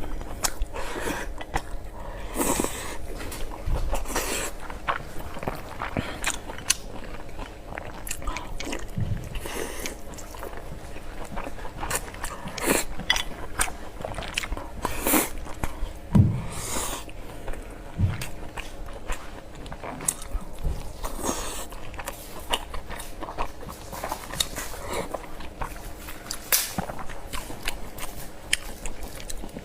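A person chewing and biting mouthfuls of pork belly and rice, with irregular short sharp clicks between the chews.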